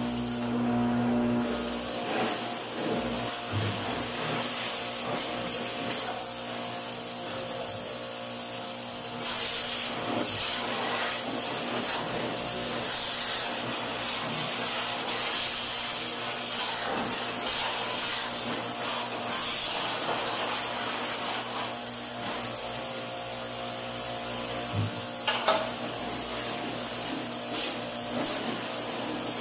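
Electric pressure washer running steadily, its water jet hissing against the dirty coil fins of a window-type air conditioner as it is cleaned. The spray gets louder and harsher about nine seconds in.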